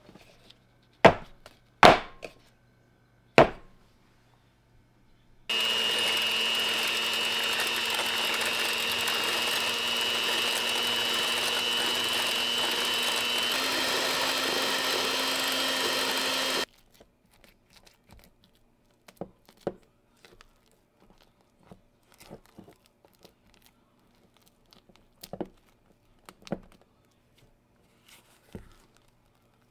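Electric hand mixer whipping cream in a bowl: it starts suddenly, runs steadily for about eleven seconds with its tone shifting slightly partway through, then stops. Before it come three sharp knocks. After it come soft scrapes and clicks of a spatula folding anko into the whipped cream in a stainless steel bowl.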